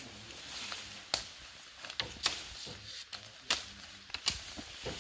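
Bamboo leaves and stems rustling as a long bamboo stalk is pulled and handled, with about five sharp cracks and knocks spread through.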